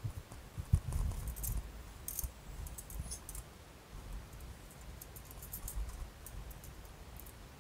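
Handling and assembly noises: scattered small clicks and jingles with a few dull knocks, the loudest about three-quarters of a second in, as wood-chipper parts and hardware are handled.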